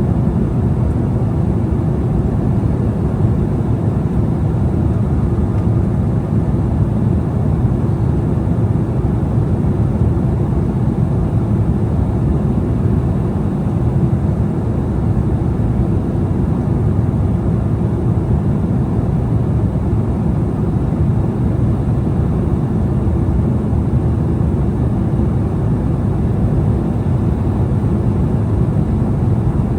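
Steady cabin noise of an Embraer E175 airliner in flight: airflow and the hum of its two GE CF34-8E turbofan engines heard from inside the cabin. It is low and even throughout.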